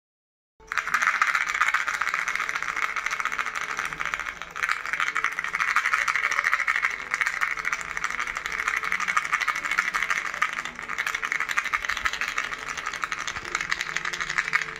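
A baby's fish-shaped toy rattle being shaken continuously: a fast, dense stream of rattling clicks that starts about half a second in, with a brief lull about four seconds in.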